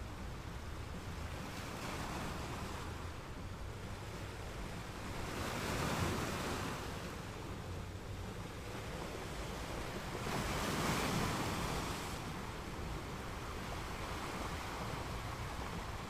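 Steady rushing noise of rain and wind, swelling in slow gusts, loudest about six and eleven seconds in.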